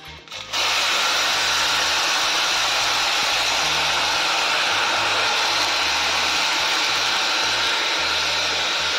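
Water poured into a hot steel pan of vermicelli roasting in ghee, hissing and sizzling as it flashes to steam: a loud, steady hiss that starts suddenly about half a second in and holds.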